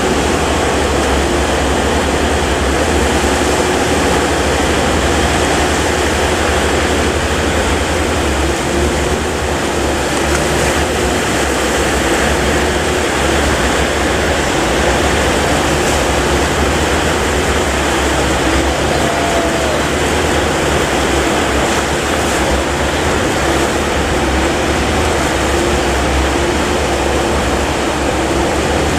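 A boat's engine running steadily under a loud, continuous rush of waves and wind.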